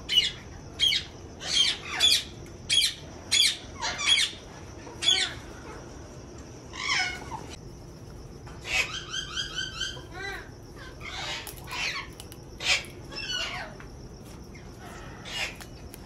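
Parrots in an aviary calling: short, sharp calls repeated every half second or so for the first five seconds, then a quick chattering run about nine seconds in and scattered calls after.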